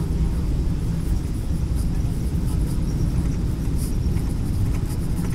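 Airliner cabin noise on final approach to the runway: a steady low rumble of jet engines and rushing air, heard from a window seat.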